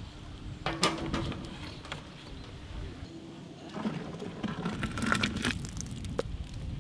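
A blender jar and its lid handled with a few sharp clicks and knocks, then blended rambutan milkshake poured from the jar into a large aluminium pot.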